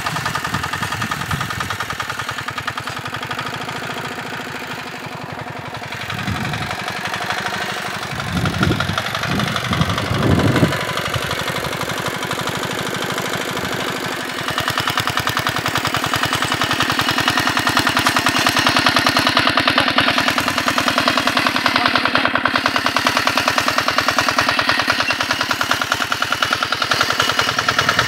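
A 5 HP diesel walk-behind power tiller's engine running steadily with a fast, even chugging while it pulls a plough through the soil. A few low thumps come around the middle, and the engine is louder in the second half.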